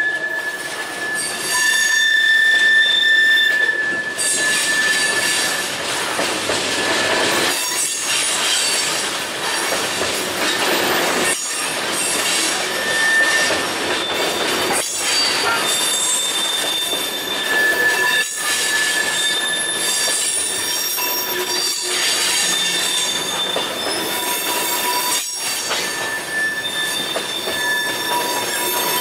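Freight train tank cars rolling slowly through a curve, their steel wheels squealing in several high, shifting tones over the rumble of the wheels on the rails. Short dips in the noise come every three to four seconds.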